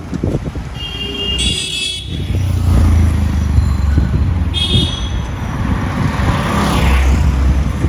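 Dense city road traffic: a steady low rumble of engines from passing vehicles, which grows louder about two seconds in. Two short, high-pitched horn toots sound, about one and a half seconds in and again about four and a half seconds in.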